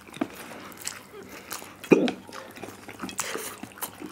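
Two people eating spicy instant noodles with chopsticks: slurping and chewing, with scattered small clicks. There is one louder sudden sound about two seconds in.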